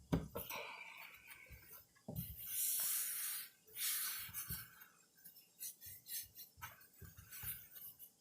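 Hands kneading, folding and tapping sticky marshmallow slime dusted with powdered sugar: scattered soft thumps and clicks, with two louder hissing rustles about two and a half and four seconds in.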